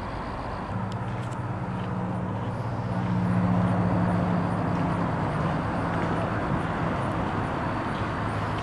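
Outdoor background noise with a low, steady motor-vehicle engine hum that comes in about a second in, is loudest around the middle, then eases a little.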